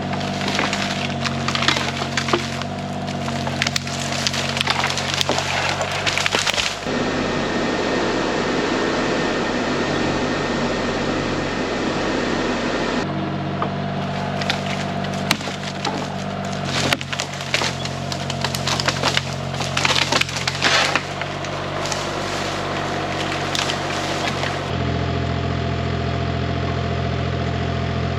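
Log grapple on an excavator gripping and moving wood, with bouts of cracking, snapping and splintering over the excavator's steady diesel engine. The cracking comes in a long bout at the start, again in the middle and briefly near the end, and the engine note shifts between them.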